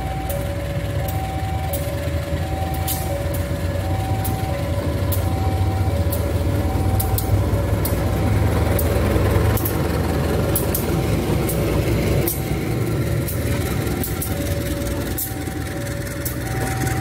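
Diesel locomotive hauling a local passenger train rumbles past, loudest about eight to ten seconds in, with its wheels clicking over the rail joints. An electronic warning alarm alternates two tones, high and low, steadily throughout.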